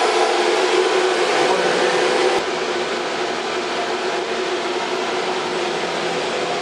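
ATC CNC router's 9.6 kW air-cooled HSD spindle running and cutting, a steady machine noise with several held tones in it. The noise drops slightly about two and a half seconds in and then holds steady.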